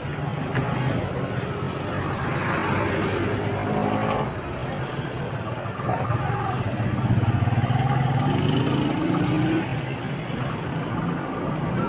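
Motor vehicle engines in passing street traffic, one engine's note rising in pitch as it speeds up about eight seconds in.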